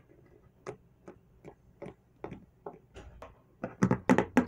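Plastic toy lion figure's feet tapping on a hard, glossy surface as it is walked along by hand, a series of sharp clicks about two or three a second, growing louder and quicker near the end.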